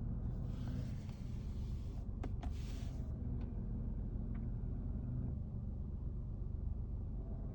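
A steady low droning vibration with no clear pitch, joined in the first three seconds by a burst of hiss and a few sharp clicks.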